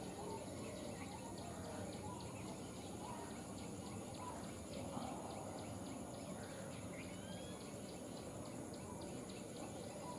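Outdoor ambience of insects and birds: a steady high insect drone with a fast, regular chirping of about four a second, and scattered bird calls, one rising call about seven seconds in.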